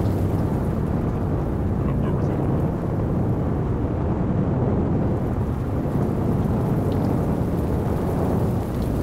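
Steady low rumble of wind and road noise from a vehicle travelling at highway speed.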